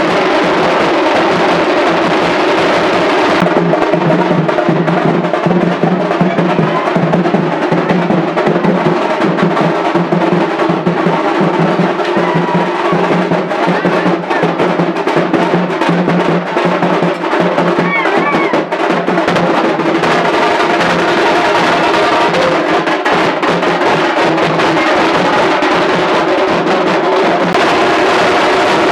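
Background music with a steady drum and percussion beat.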